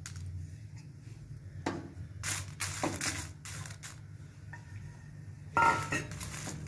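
Spatula stirring dried Kashmiri chillies in a little oil in a nonstick frying pan: irregular scrapes and rustles of the crisp chillies against the pan, louder about two to three seconds in and again near the end, over a steady low hum.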